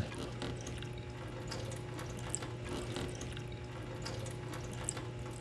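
Water fountain running, its stream pouring steadily into a container being filled, over a steady low hum.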